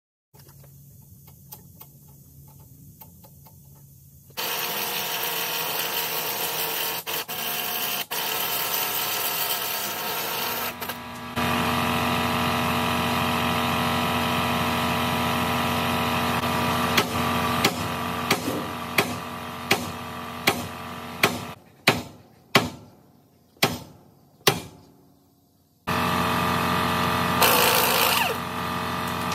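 Air impact wrench running in long stretches on the tie rod end nut of a heavy-truck steering arm. About halfway through comes a string of about a dozen sharp metal strikes, each ringing out.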